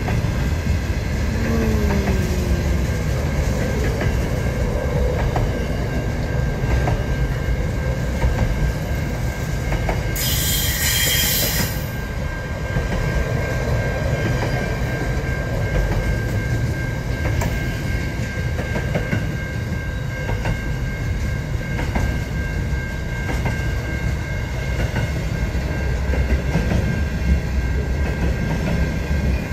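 Aurizon freight train wagons rolling past: a steady heavy rumble with sharp clicks of wheels over the rails. About ten seconds in there is a brief high screech, then a thin, steady wheel squeal holds on.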